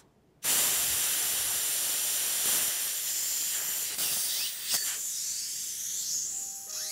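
Ralston Quick-Test connection self-venting a pressurised line of about 2,000 psi as its hose fitting is unscrewed without venting first. Escaping pressure makes a loud hiss that starts suddenly about half a second in and slowly tapers off as the pressure bleeds down, with a small click about two-thirds of the way through.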